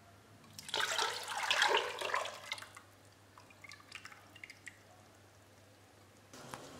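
Lemon juice concentrate poured from a glass bowl into an empty stainless steel pot: a splashing pour lasting about two seconds, then trailing drips.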